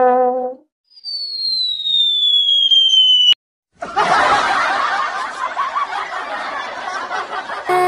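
A single high tone slides steadily downward for about two seconds and cuts off abruptly. After a short gap, a crowd laughs continuously.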